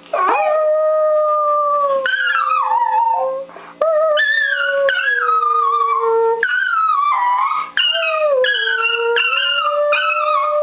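Pet dog howling in a series of long, wavering calls, the pitch sliding up and down, with brief breaks for breath about a third and two-thirds of the way through.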